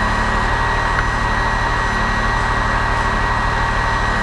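Can-Am Maverick X3 side-by-side's engine running steadily under way, a low even drone with a constant rushing noise over it.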